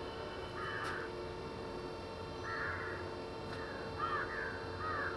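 A crow cawing repeatedly: about five short, harsh caws, two of them in quick succession near the middle.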